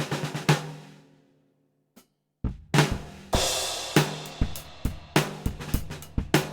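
Drum kit with a NOAH DC 14x6" snare: quick snare strokes end on a loud accent that rings out into about a second of silence. After a single click, the kit comes back in with a cymbal crash and a steady groove of snare, bass drum and hi-hat.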